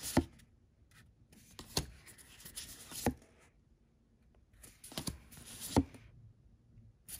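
A deck of oracle cards being handled one card at a time: several sharp snaps of card stock with soft rustling between and short quiet pauses.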